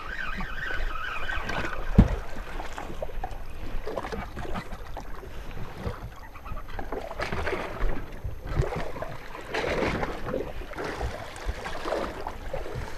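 Water sloshing and splashing around a small boat at sea, with one sharp knock about two seconds in.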